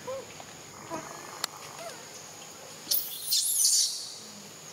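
Macaque calls: a few faint short squeaks in the first two seconds, then a loud, shrill, high-pitched scream lasting about a second, starting about three seconds in.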